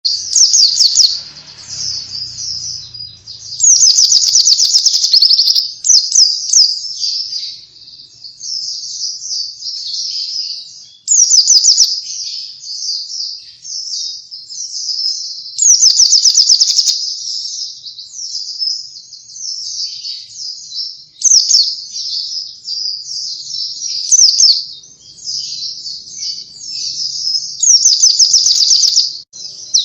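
White-eye (pleci) in full, continuous song: a rapid, high-pitched twittering chatter broken every few seconds by loud, fast trills.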